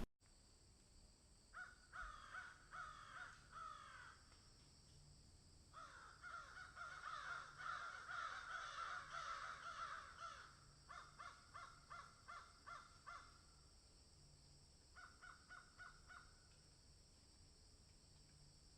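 Birds calling in several bouts, faint: scattered calls, then a long run of overlapping calls, then quick series of repeated notes near the end.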